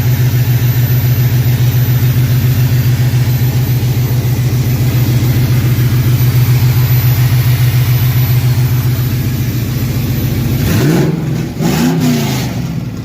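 Camaro Z28's LS1 V8, fitted with long-tube headers, idling with a steady, rapid exhaust pulse, then revved twice near the end, the pitch rising and falling each time.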